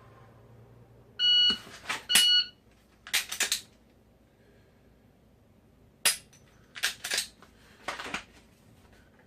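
Shot timer gives a start beep and a par-time beep about a second later, marking a 0.9-second dry-fire draw. Between and after the beeps come clicks and rustles of a Glock 23 being drawn from the holster, the trigger snapping on an empty chamber, and the pistol going back in. Further clicks and rustles follow twice more.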